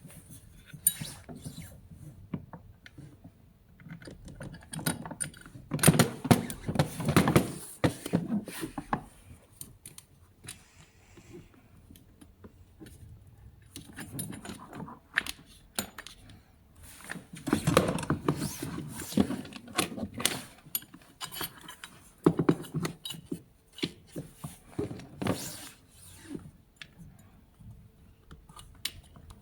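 Metal parts and hand tools clinking and clattering in intermittent bursts of handling, with quieter gaps between.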